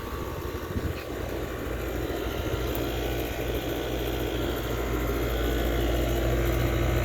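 Outdoor central air-conditioner condensing unit running: a steady low compressor hum under the rush of the condenser fan, slowly growing louder.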